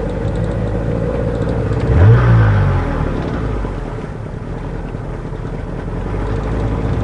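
Johnson 40 hp two-cylinder two-stroke outboard running just after being restarted. It revs up briefly about two seconds in, then settles back to a steadier run. It runs with a slight miss that the owner puts down to carburetors needing tuning.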